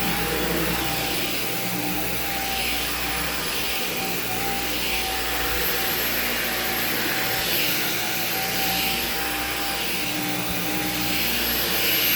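Dyson Gen5 Detect cordless stick vacuum running steadily: a constant motor whine over a low hum, with the rush of airflow swelling every two to three seconds.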